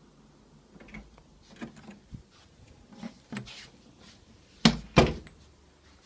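A wooden door being handled: a few light clicks and knocks, then two loud knocks about a third of a second apart near the end as it is shut.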